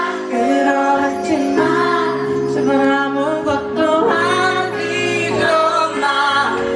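A man singing live into a microphone over band accompaniment, his melody gliding and wavering above steady held chords and bass.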